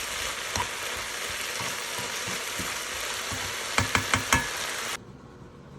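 A steady sizzling hiss with a few sharp clicks about four seconds in, cutting off abruptly near the end.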